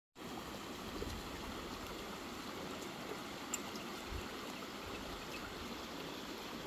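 Small rocky mountain creek flowing over stones and through shallow pools, a steady babble of running water.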